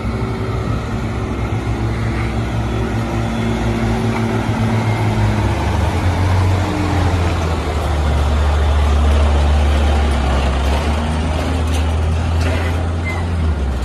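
Scania heavy truck's diesel engine running at low revs while the rig manoeuvres slowly; the steady low drone deepens and grows stronger about halfway through.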